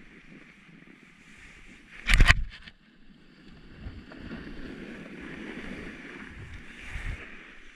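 Snowboard sliding and edge-scraping over groomed snow through turns, with a rushing noise. About two seconds in comes a much louder rush of noise lasting about half a second.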